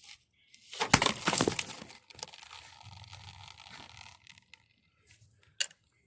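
Hard plastic clicking and cracking, then rustling and scraping, as the fuel filter and its plastic line fittings are worked loose and pulled free. The loudest cracks come in a burst about a second in, and a couple of lone clicks follow near the end.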